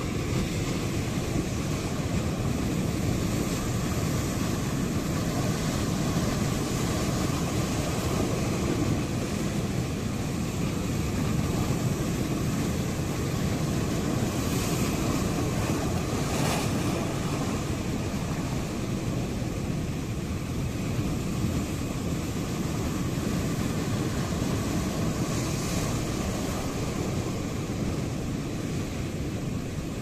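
Ocean waves breaking on the coast in a steady rumbling wash of surf that swells and eases, with brighter splashing hiss about halfway through and again near the end.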